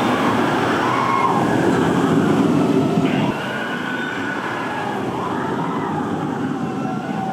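Velocicoaster roller coaster train running along its steel track: a loud steady rush with faint gliding whine-like tones, dropping suddenly to a softer level a little over three seconds in.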